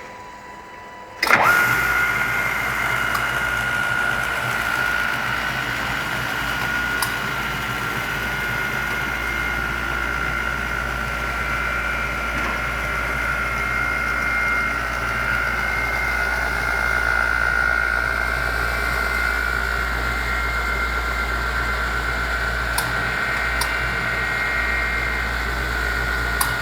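An electric motor on a Bode 3/RMB column-and-boom manipulator switches on about a second in and runs steadily with a high whine over a low hum. A few faint clicks sound during the run.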